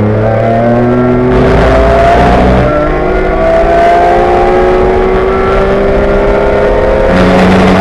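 BMW E46 M3 race car's straight-six engine under full throttle, heard from inside the cockpit over loud wind and road noise, its revs climbing slowly and steadily.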